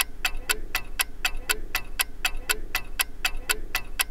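Clock-ticking sound effect for a countdown timer: steady, even ticks about four a second, with a lower knock on some of them.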